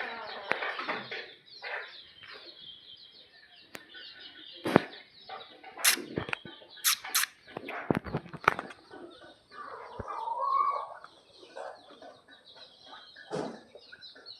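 Desi chickens clucking on and off, with several loud sharp knocks in the middle and a longer call a little past the halfway point.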